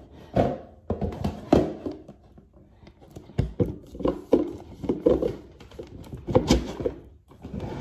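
Plastic DVD cases being slid and knocked one after another into a cardboard box set, an irregular run of clacks and thuds.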